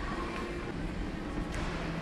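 Large supermarket's ambience: soft background music with held notes playing over a steady hubbub of the store.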